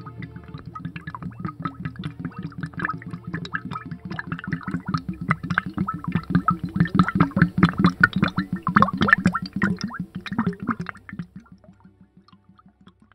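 Liquid gurgling and bubbling as an enema bottle on a drip stand drains, a rapid string of bubbling pops. It grows louder toward the middle and fades out near the end.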